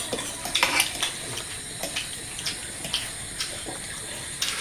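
Light, irregular clinks and taps of spoons and cutlery against plates during a meal, a few scattered strokes over a faint steady hiss.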